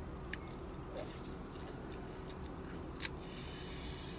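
Ice cream cones being bitten and chewed: a few sharp crisp snaps, the loudest about three seconds in, followed by about a second of crunchy chewing, over a low steady hum.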